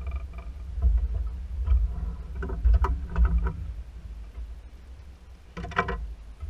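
Small fishing boat moving slowly through the water: a steady low rumble, with a cluster of short knocks about halfway through and another short sharp sound near the end.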